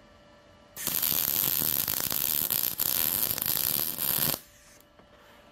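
MIG welder arc crackling on steel in one continuous bead lasting about three and a half seconds. It starts about a second in and cuts off suddenly when the trigger is released.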